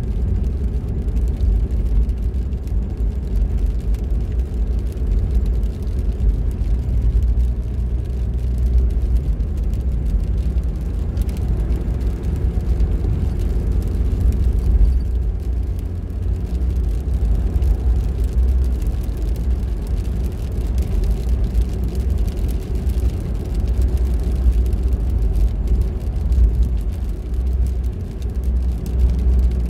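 A car driving at steady speed: a continuous low rumble of road and engine noise.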